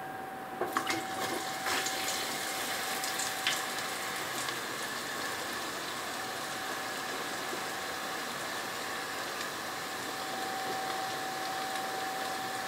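Cornflour-coated raw potato sticks going into hot oil in an electric deep fryer: the oil sizzles steadily, with a few sharp crackles in the first few seconds.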